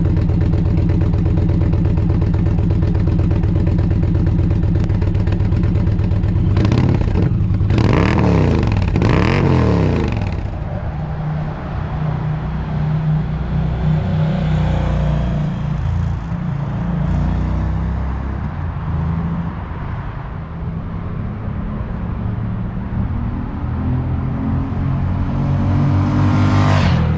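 2020 Indian Challenger's V-twin running through Tab Performance Bam Stick slip-on mufflers with Zombie Baffles. It idles steadily, is blipped three times about seven seconds in, then runs at a quieter, shifting note, with a rising rev near the end.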